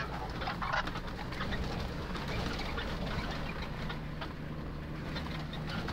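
Nissan Patrol running at low speed on a rough dirt track, heard from inside the cab: a steady low engine drone with frequent small knocks and rattles from the body jolting over the ground.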